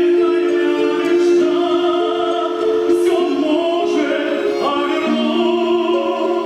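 Music with singing in an operatic, classical style: long held sung notes moving in a slow melody over an accompaniment.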